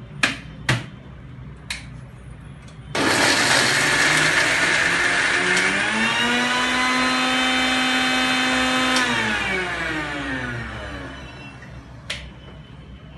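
Electric mixer grinder with a small steel jar grinding a masala paste. A few clicks as the jar and lid are handled, then the motor starts about three seconds in, its whine rising as it comes up to speed and then running steadily. It is switched off and winds down with a falling whine, with one more click near the end.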